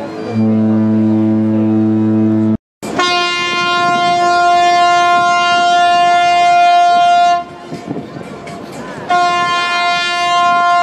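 Ship horns sounding long, steady blasts: a deep horn for about two seconds, a brief cut to silence, then a higher-pitched horn held for about four seconds and sounding again near the end.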